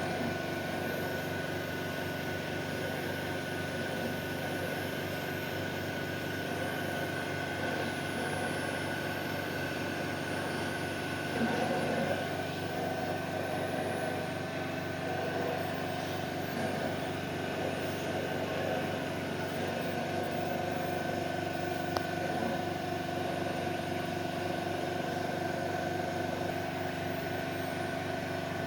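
Dual-station automatic PCB soldering machine running: a steady mechanical hum with several steady tones, a brief louder stretch about twelve seconds in and a single click later on.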